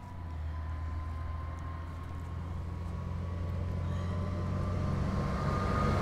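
A vehicle's low engine rumble with a faint steady whine, growing steadily louder.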